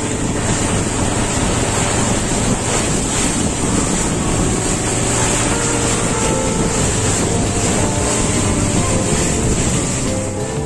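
Motorboat running at speed on a river: a steady engine hum under water rushing and splashing against the hull and wind buffeting the microphone.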